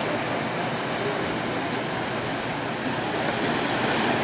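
Small surf breaking and washing onto a sandy beach, a steady rush of water.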